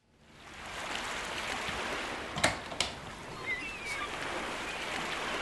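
Steady rushing noise like running water, fading in at the start, with two sharp clicks about two and a half seconds in and a few faint high chirps.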